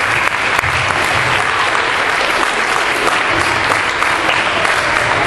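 Steady applause, many hands clapping at once, with the children on stage joining in.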